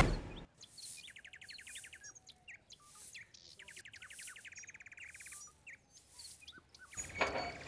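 Birds chirping, with two fast, evenly pulsed trills, over a faint outdoor background. Near the end a louder noisy sound starts up.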